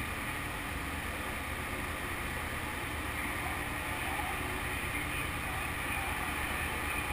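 Motorcycle engines running at low speed on a ferry's enclosed vehicle deck, a steady low rumble.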